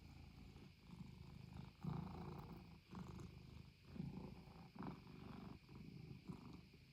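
Norwegian Forest Cat purring softly, the purr swelling and easing with each breath about once a second.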